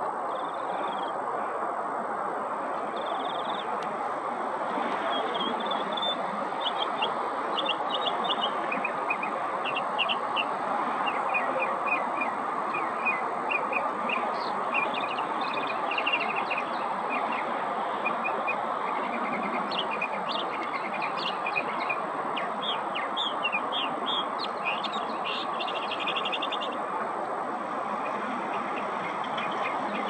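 Northern mockingbird singing a string of short phrases, many of them quickly repeated notes, that mimic other birds' calls and change every few seconds. A steady background noise runs underneath and is louder than the song.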